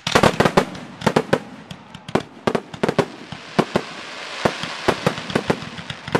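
A fireworks display with aerial shells bursting in quick, irregular succession: many sharp bangs, several a second at times. In the middle a dense hiss swells between the reports.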